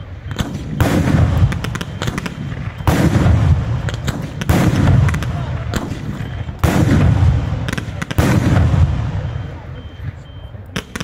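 Bolognese-style fireworks battery going off in a run of about five heavy salvos, each a deep boom packed with rapid crackling bangs, coming every second and a half to two seconds. The salvos die away near the end, leaving a few small pops.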